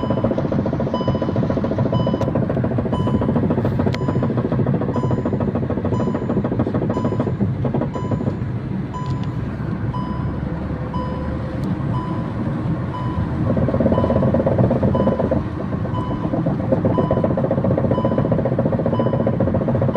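Front wheel hub with loosened hub nuts knocking rapidly and continuously as the car moves, the wheel working loose on its hub. A short beep repeats at an even pace over it.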